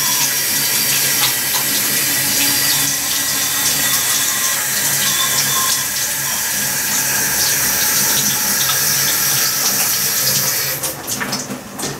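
Kitchen tap running steadily into the sink while hands are washed, turned off about 11 seconds in, followed by a few small clicks.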